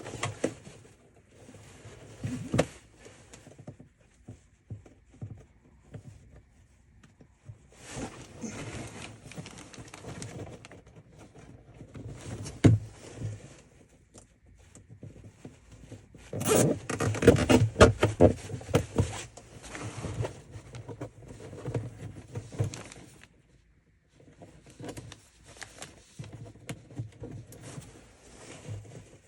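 Plastic zip ties being pulled tight through their locking heads, a rapid ratcheting zip in several bursts, as they cinch shut a split in a plastic trash can. A few knocks from handling the can come in between.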